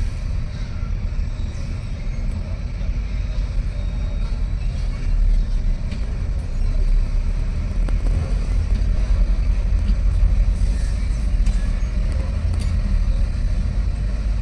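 Heavy diesel engines running with a steady low rumble as an excavator pushes a broken-down heavy truck, with a few faint clicks.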